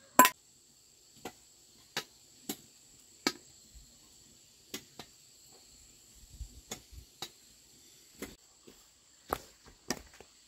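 Sharp knocks and clicks of metal kitchenware: a metal bowl knocked against a wooden mortar as steamed sticky rice is tipped in, the loudest knock just after the start, then a spoon clinking against a metal pot. Under them runs a faint, steady high chirring of insects.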